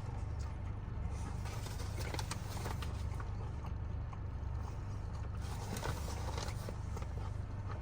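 Steady low hum inside a parked car's cabin, with the engine idling, and faint scattered clicks and rustles from someone eating a sandwich.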